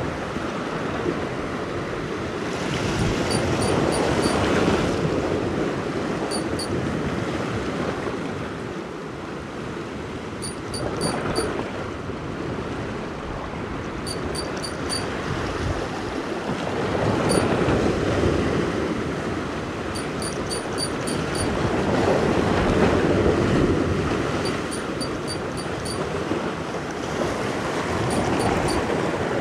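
Sea waves washing and breaking against a rocky shore, swelling and easing every few seconds. Faint short runs of quick ticks recur throughout.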